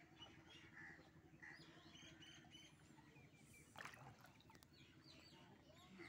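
Faint, quiet birds chirping, with a low steady hum beneath and one brief louder noise about two-thirds of the way through.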